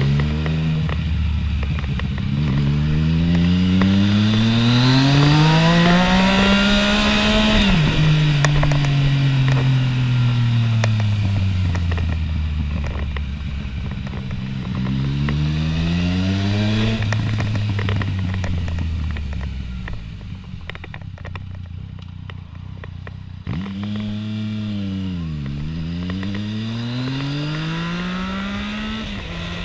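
Yamaha MT-09 three-cylinder motorcycle engine accelerating hard, its pitch climbing for several seconds before the throttle is shut off abruptly and the engine winds down. It pulls up and winds down once more, then a couple of quick revs near the end.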